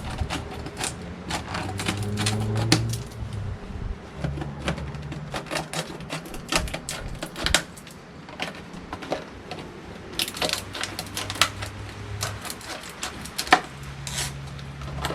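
Packaging of a key safe lock box being opened by hand: a long run of irregular clicks, snaps and crackles.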